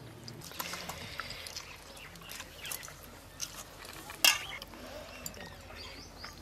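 Rice and fish curry being mixed and squeezed by hand in a stainless steel bowl: soft wet squishing and scraping with light clinks against the steel, and one sharp clink a little past four seconds in.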